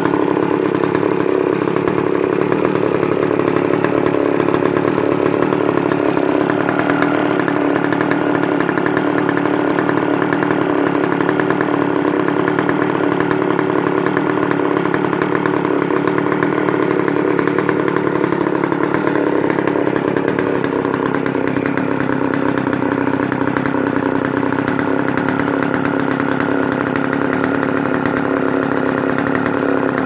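McCulloch cut-off saw's two-stroke engine idling steadily.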